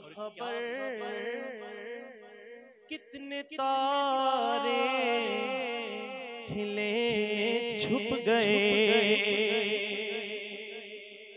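A man singing a naat into a microphone through a PA system, holding long wavering notes with little or no clear words, over a steady drone. There is a brief break about three seconds in, and the singing fades down near the end.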